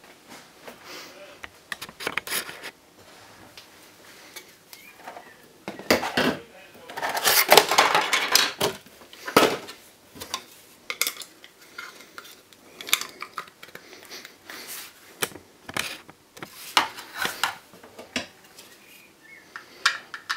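Stiff clear plastic packaging crinkling and clattering as it is handled, with many sharp clicks and knocks. The loudest, densest crackling comes about seven to nine and a half seconds in.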